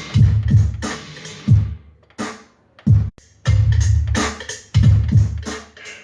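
Electronic drum-machine dance beat with heavy bass drum hits. About two seconds in, the beat drops out for roughly a second, leaving a few short hits, then comes back in.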